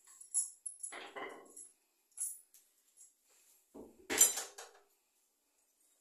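Kitchen handling sounds: a few light metallic clinks of steel plates and utensils, with a louder clatter about four seconds in.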